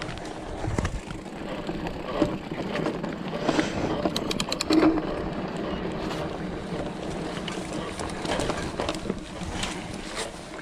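Mountain bike rolling along a dirt singletrack: continuous tyre noise on dirt and stones, with rattles and knocks from the bike over bumps.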